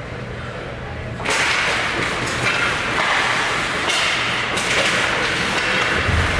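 Ice hockey skates carving and scraping across the ice, a hiss that starts suddenly about a second in as play begins and stays up, briefly louder around the middle.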